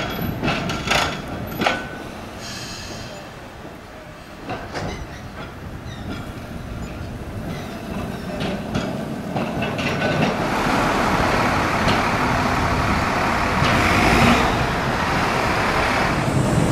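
Blackpool twin-car tram set pulling away along street track: a few sharp clicks and knocks at first, then a quieter stretch, then a louder steady rumble of rail running from about ten seconds in.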